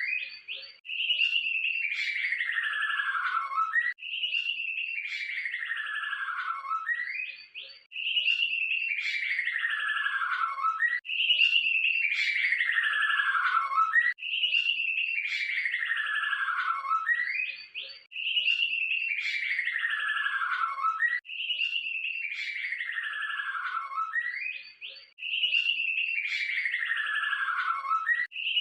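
White-rumped shama (murai batu) song in a looped training recording. One trilled phrase falls steadily in pitch and ends with a short rising note, and it repeats about every three to four seconds, eight times over.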